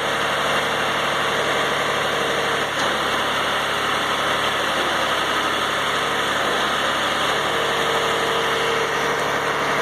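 Tractor engine running steadily while the front loader is worked.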